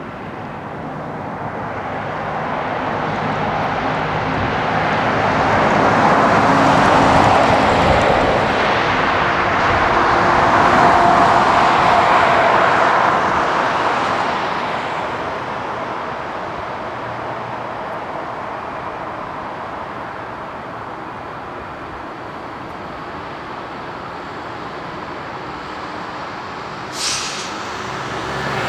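Jet roar from a Boeing 747-8's four GEnx turbofans at takeoff thrust as it climbs away. It builds to a peak a few seconds in, then slowly fades as the aircraft recedes. A brief sharp click comes near the end.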